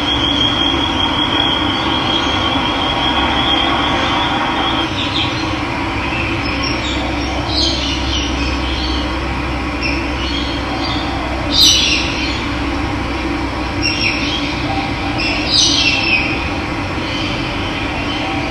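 Running water rushing steadily, with a high trill for the first few seconds and then a series of short bird chirps, the loudest a little past the middle.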